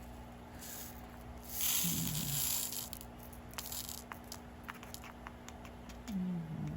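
A small plastic packet of seed beads being handled: a short crinkling rustle about two seconds in, then scattered light clicks and ticks as the packet and beads are moved about. Two brief hummed "mm" sounds come through.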